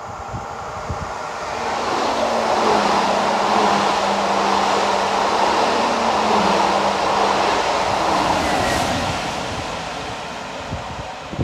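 A Transilien Line N push-pull commuter train of VB2N double-deck coaches, pushed by BB27300-class electric locomotive BB27317, passes at speed without stopping. The rush and rumble of wheels on rail swells over about two seconds, holds with a steady low hum beneath it, and fades as the train runs away.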